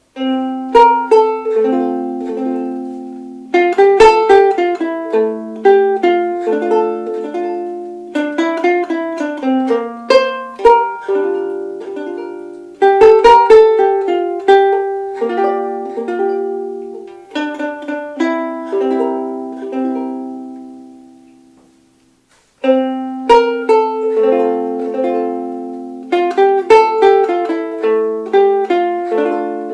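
A soprano ukulele playing a plucked melody with chords, its notes left ringing. The passage dies away to silence about 22 seconds in, and then the same passage starts over, on the next ukulele in the comparison.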